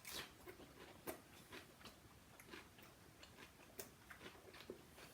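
Faint, irregular clicks and smacks of someone chewing food with their mouth.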